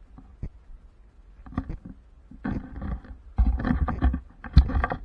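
Handling noise from an action camera being moved: irregular muffled rubbing and knocking, starting faintly and growing louder and busier over the last couple of seconds.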